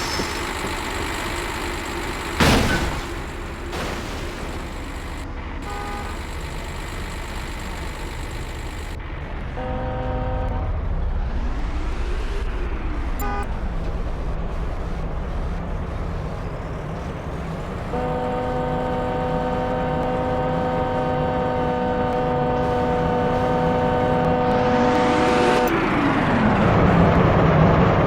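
Road traffic with horns: a short honk about six seconds in, another about ten seconds in, and one long steady horn blast from about eighteen seconds in until near the end, over a steady traffic rumble.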